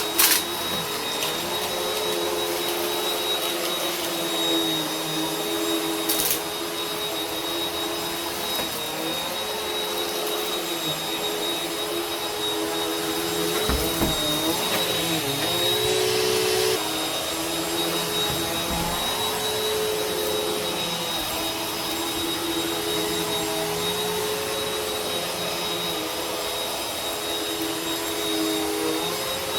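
Vacuum cleaner running continuously: a steady motor drone with a high whine, its pitch wavering and dipping now and then, louder for a couple of seconds past the middle. Sharp clicks come near the start and again about six seconds in.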